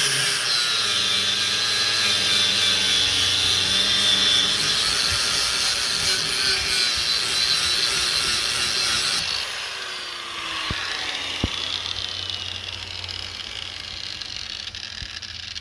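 Power drill boring out the weld-filled pivot hole in a steel control lever: a loud, high-pitched cutting noise for about nine seconds, then it drops quieter, with a falling tone as the drill winds down and a couple of sharp clicks.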